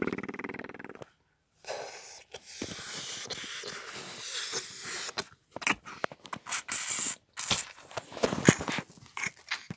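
Handling noise from an Optimus Prime action figure being moved about close to the microphone: irregular clicks, scrapes and short hisses, busiest in the second half.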